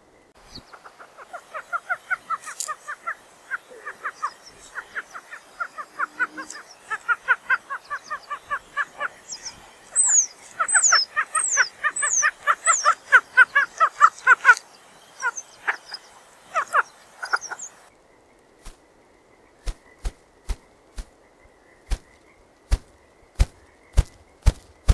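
A dense chorus of short, rapidly repeated calls, joined about ten seconds in by a bird's high falling whistles. About 18 seconds in it gives way to a ruffed grouse drumming: separate thumps from its wingbeats, slow at first and speeding up toward a roll.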